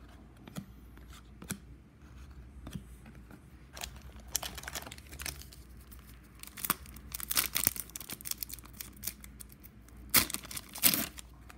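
Foil hockey-card pack wrapper crinkling and being torn open, after a few seconds of light handling of cards. The crinkling starts about four seconds in and grows denser, with sharp rips near the end.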